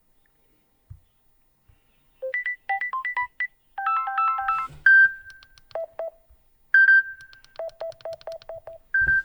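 A Samsung Galaxy A23 ringtone playing from the phone's speaker: a melody of short, bright electronic notes, some sounded together as chords and a few held longer, starting about two seconds in after a few faint clicks.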